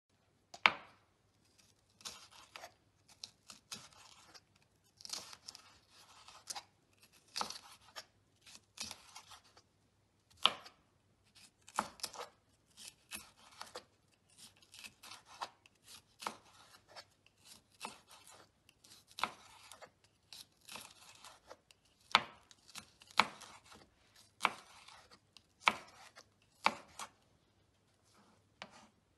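Kitchen knife slicing a green bell pepper into strips on a wooden cutting board: an irregular run of blade knocks on the board with crisp cutting sounds between, a handful of strokes much louder than the rest.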